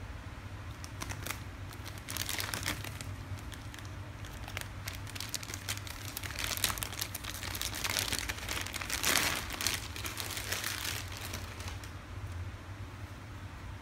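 Thin clear plastic bag crinkling as hands unwrap an RC car's pistol-grip transmitter from it. The crackles come in irregular bursts from about a second in until near the end, busiest and loudest around the middle.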